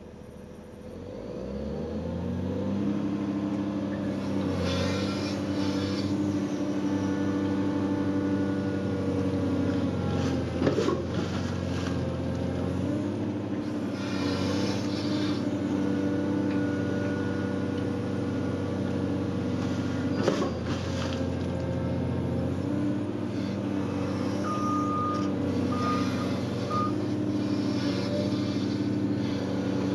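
Hydraulic excavator's diesel engine picking up over the first couple of seconds and then running steadily under working load. Two sharp metallic clanks come about a third and two thirds of the way through, and three short high beeps sound near the end.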